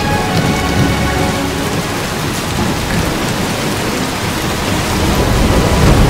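Thunderstorm: heavy rain pouring with thunder rumbling. The low rumble swells about five seconds in.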